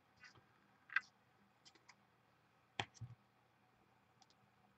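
Faint, scattered clicks and light rustles of trading cards and a torn foil pack wrapper being handled, half a dozen small sounds, the sharpest click a little under three seconds in.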